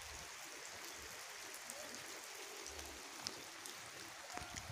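Steady rain falling, a faint even hiss with a few short ticks scattered through it.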